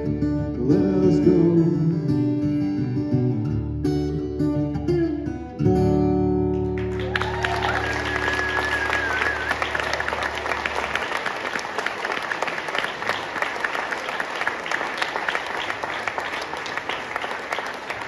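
A solo acoustic guitar and a male voice singing the closing bars of a song end on a final chord that rings out. About seven seconds in, audience applause breaks out, with a whistle from the crowd, and slowly fades.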